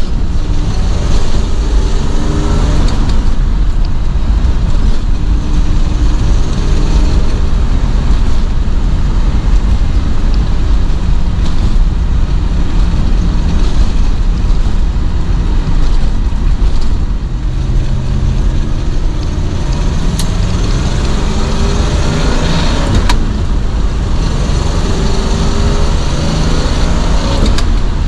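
1970 Pontiac GTO Ram Air IV's 400 cubic-inch V8 heard from inside the cabin under way, its pitch climbing again and again as the car accelerates, over steady road noise. Loudness dips briefly about two-thirds of the way through, then the engine pulls up again.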